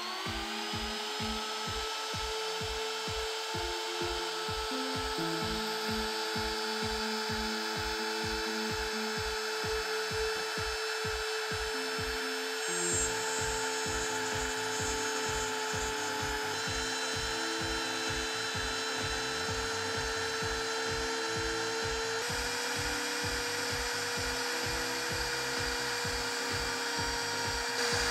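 A router motor serving as the spindle of a DIY CNC machine spins up with a rising whine, then runs at a steady high speed while its bit mills a groove into plywood. Background music with a steady beat plays underneath.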